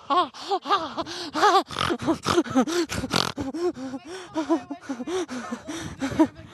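Rapid panicked gasps and short cries from a young person, three or four a second, each rising and falling in pitch with breathy noise between: play-acted terror.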